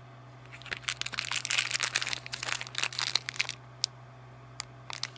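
Plastic packaging around a roll of washi tape crinkling as it is handled: a dense run of crackles for about three seconds, then a few separate crackles.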